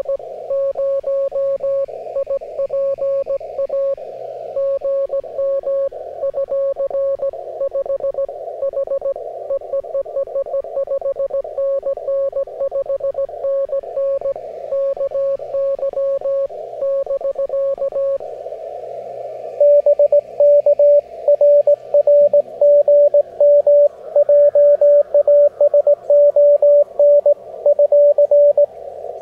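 Morse code (CW) heard on an amateur radio receiver: a steady tone keyed in dots and dashes over a narrow band of hiss. A little over halfway through, a louder station at a slightly higher pitch starts sending.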